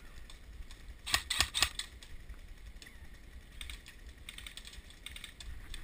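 Airsoft guns firing: a quick run of about four sharp clicking shots about a second in, followed by fainter scattered clicks later.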